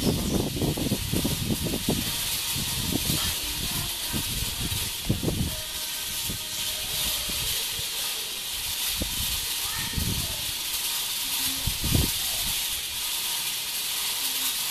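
Cicada buzzing: a steady, high-pitched, hiss-like drone. Irregular low thumps are heard under it, most in the first few seconds.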